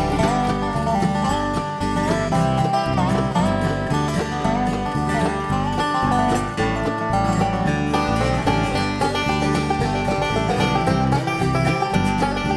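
Instrumental break of a live gospel song: a string band plays with plucked strings at the fore and no singing.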